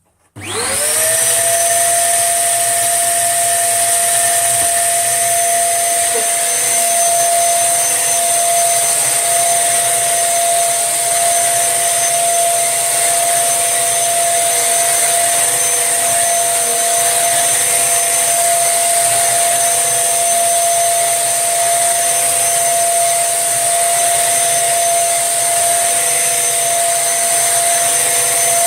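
Tesco own-brand 1800-watt bagless upright vacuum cleaner switched on, its motor spinning up with a quick rising whine, then running steadily as it vacuums powder off carpet.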